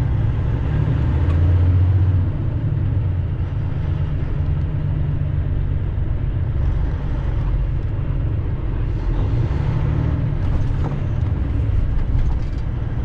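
Semi truck's diesel engine running with a steady low rumble, heard from inside the cab in slow stop-and-go traffic, with a few faint clicks near the end.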